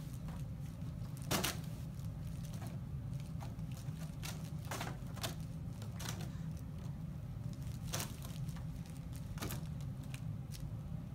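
Scattered light crinkling rustles and soft taps, one every second or two, over a steady low hum.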